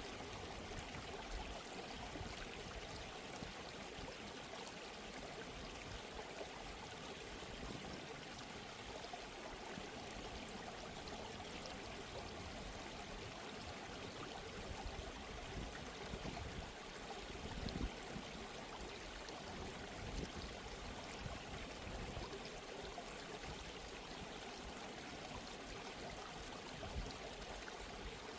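Steady flowing water, like a stream or small waterfall, at a low level with small irregular splashes.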